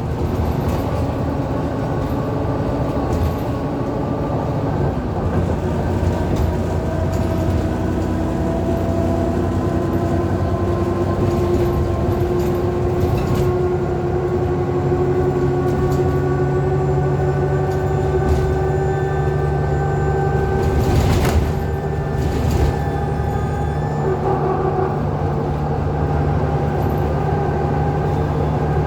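Interior of a 2009 Alexander Dennis Enviro400 (Trident 2) double-decker bus under way. The engine drones, and a whine from the turbo and differential slowly rises in pitch as the bus gathers speed, then levels off. There are a few knocks and rattles about twenty seconds in.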